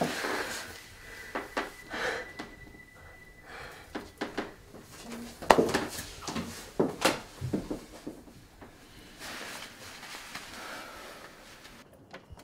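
Breathing, clothes rustling and scattered knocks from two people embracing against a door, with the loudest knock about five and a half seconds in.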